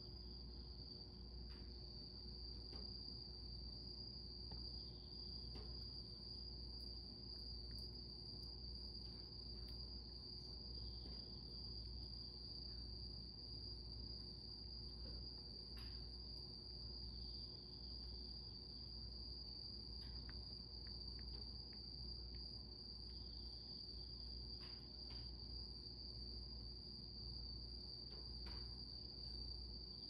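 A steady, high-pitched insect trill holding one unchanging pitch, faint, over a low hum.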